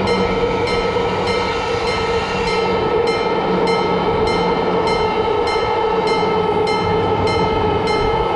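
Japanese railroad crossing alarm bell ringing steadily, about two strokes a second, with a train running past beneath it.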